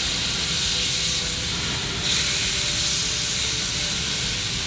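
Marinated steak strips and chicken sizzling on hot GrillGrates over a gas grill: a steady, even sizzling hiss.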